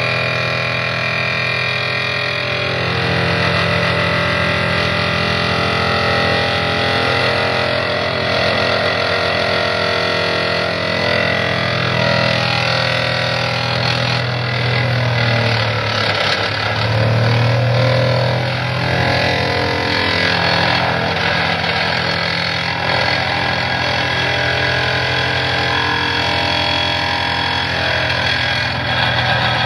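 Excavator-mounted vibratory pile driver running on a steel sheet pile, with the excavator's engine running under it: a steady, loud mechanical drone whose low hum dips and shifts pitch about halfway through.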